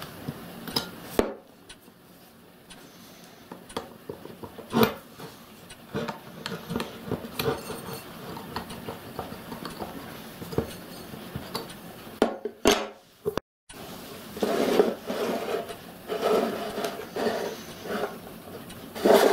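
Steel parts of a model locomotive gas burner clinking, scraping and knocking as a steel mounting plate is worked off a row of steel burner tubes and the pieces are set down on a wooden bench. The scraping and rattling grow denser in the last few seconds.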